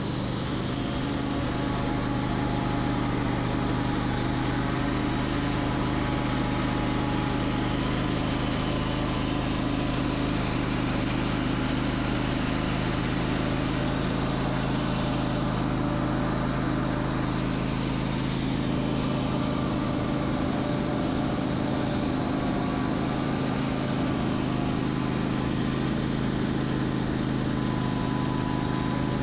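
Sawmill engine running steadily at an even pitch and level.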